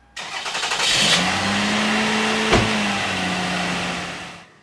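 Toyota Camry's engine starting and running: a sudden burst of engine noise that settles into a steady hum, with one sharp click about two and a half seconds in, fading out near the end.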